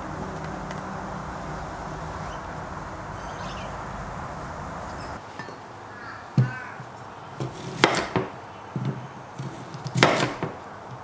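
Steady outdoor background noise, then about five seconds in a kitchen knife slicing a raw potato into sticks on a wooden chopping board. Several sharp, separate knocks of the blade striking the board, the loudest near the end.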